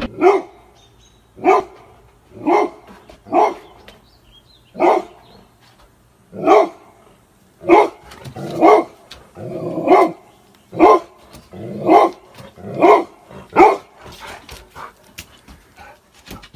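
A dog barking repeatedly, single barks about a second apart, with softer barks near the end.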